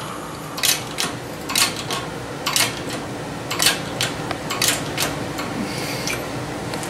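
Hydraulic bottle-jack shop press being worked, with sharp metallic clicks about once a second as it pushes a new wheel-bearing race into a brake rotor hub. A steady low hum runs underneath.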